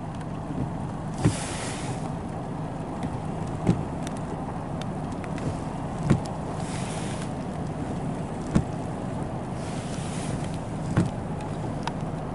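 Steady thunderstorm wind and rain noise, swelling briefly a few times, with a dull knock repeating evenly about every two and a half seconds.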